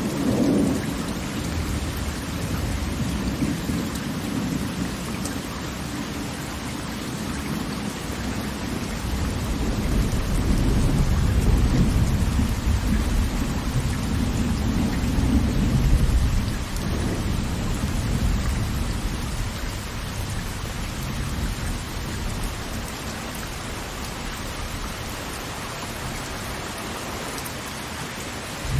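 Large waterfall's falling water: a steady rush with a deep rumble that swells in the middle and eases off toward the end.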